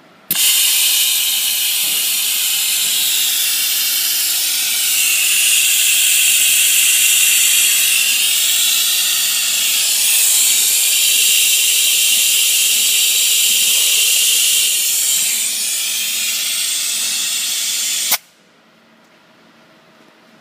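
Vacuum test chamber's air system giving a loud, steady hiss of rushing air. It starts suddenly, swells a little partway through, and cuts off sharply after about eighteen seconds.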